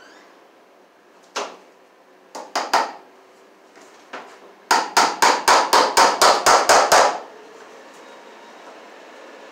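Hammer driving a cable staple into a wooden post to fasten electrical cable: a single blow, a few quick taps, then a fast run of about a dozen blows at about five a second.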